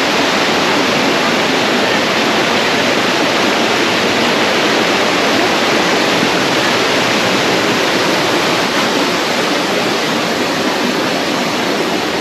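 Rushing water of a mountain stream or waterfall running high after heavy rain, a loud, steady rush.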